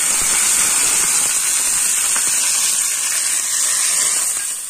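Hot tempering oil with mustard seeds, dried red chillies and curry leaves sizzling in a small tadka pan as peanut chutney is spooned into it. A steady hiss that eases a little near the end.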